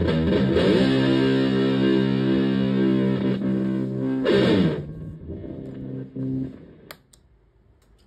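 Electric guitar (Stratocaster) through a violet Ram's Head Big Muff-style fuzz pedal into a Fender Twin Reverb-style amp, playing a fuzzed lead line: a held note, then a quick flurry of notes about four seconds in. The playing dies away, and a single click near the end is the pedal's footswitch turning the fuzz off.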